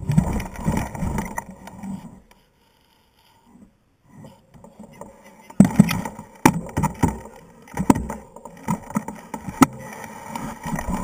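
Mountain bike clattering and knocking on a rocky trail, with sharp clicks and rattles. There is a near-silent pause of about two seconds a little way in.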